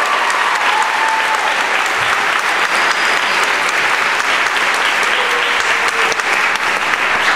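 Audience applauding, dense and steady, with a few faint voices calling out over the clapping.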